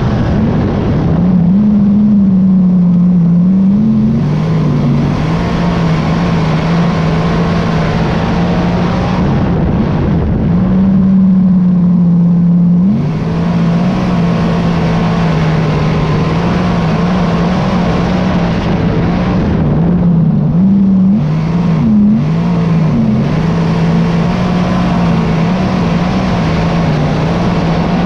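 Big-block Chevrolet V8 of a dirt modified heard onboard at racing speed, running hard and loud. Its note holds mostly steady but drops and climbs again several times as the throttle comes off and back on through the turns.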